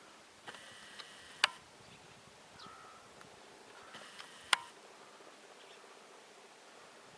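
A bird calling twice, about three seconds apart, each call about a second long. A sharp click near the end of each call is the loudest sound.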